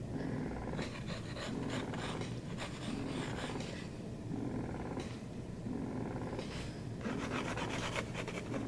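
Domestic cat purring close up, a low continuous purr that swells and fades with each breath about once a second.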